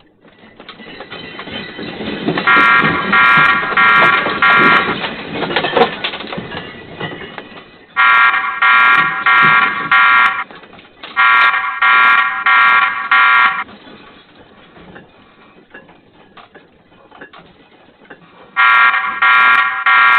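Earthquake shaking a small store, heard through a security camera's microphone: a rumble and rattle of shelving and hanging goods that builds up and is loudest in the first several seconds, then dies down. Over it an electronic alarm sounds in groups of about four beeps, four groups in all.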